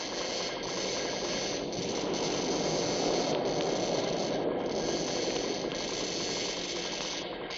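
Horror sound-effects record: a laboratory machinery effect of dense, rapid rattling and crackling. It runs continuously, swelling a little in the middle and easing off near the end.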